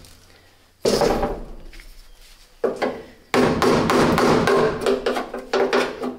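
Metal-on-metal clanks from a flat chisel worked against a spot-welded steel bracket to break the drilled-out welds free: two separate strikes, the first ringing briefly, then from about halfway a quick run of rapid knocks and scraping.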